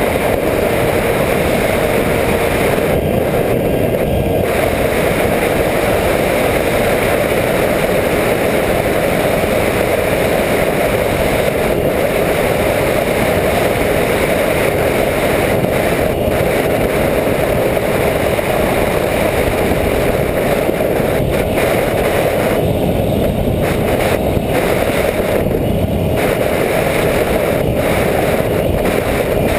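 Steady, loud rush of wind over the onboard camera of a Skywalker 1900 RC plane in flight, mixed with the hum of its electric motor and propeller. A faint steady whine near the start fades out within the first few seconds.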